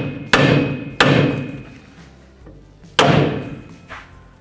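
Hammer striking a steel steering knuckle beside the upper ball joint: three sharp metallic blows, the first two close together and the third about two seconds later, each with a brief ring. The blows break the ball joint's tapered stud loose from the knuckle.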